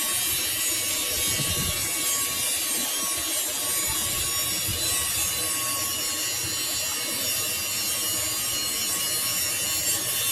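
Lathe cutting a steel shaft: a steady, even scraping hiss from the cutting tool over the hum of the running machine.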